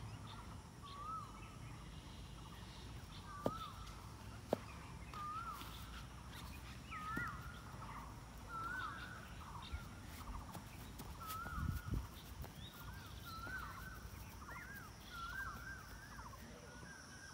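Faint bird calls, short arching notes repeated about once a second, with two soft clicks about a second apart a few seconds in.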